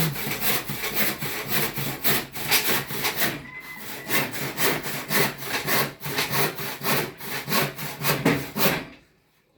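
Hand saw cutting through wood in steady back-and-forth strokes, about two to three a second, stopping near the end.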